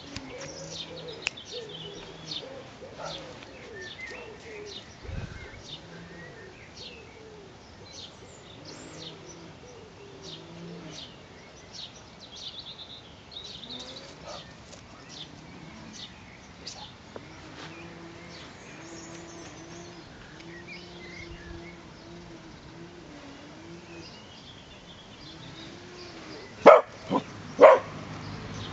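Birds chirping throughout, then a cocker spaniel barks twice, a second apart, loud and sharp near the end.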